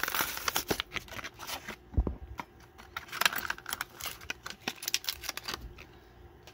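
Diecast car blister pack being opened by hand: the stiff clear plastic bubble crackles and snaps as it is pried and flexed and the cardboard backing card tears, in dense runs of crinkling with a dull knock about two seconds in.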